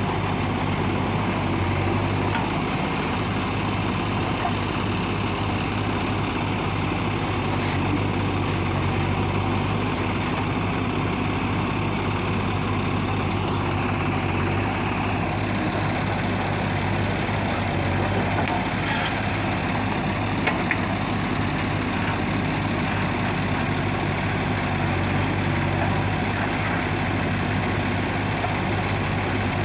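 JCB 3DX backhoe loader's diesel engine running steadily while the backhoe digs soil and swings it over to dump into a trailer. A couple of short knocks come about twenty seconds in.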